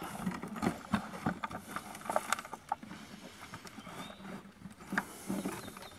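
Hollow black plastic infiltrator septic chamber being shoved and worked into place by hand in a trench: scattered knocks, scrapes and rustling of the plastic against dirt and roots, with louder knocks about two seconds in and again near the five-second mark.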